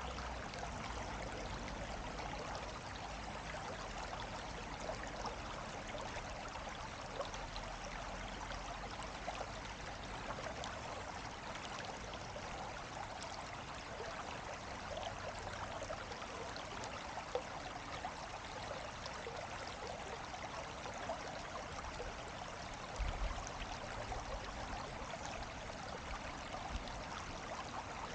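Steady rushing of flowing water, even throughout, with a brief low rumble late on.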